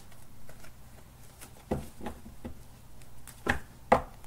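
Tarot cards being handled in the hands: a few soft, scattered taps and flicks of the deck, the loudest two coming near the end.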